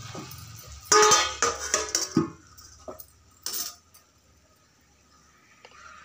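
Steel plate set down as a lid on a metal kadai: a loud metallic clatter with ringing about a second in, a few lighter clinks after it, and one more sharp clink about three and a half seconds in.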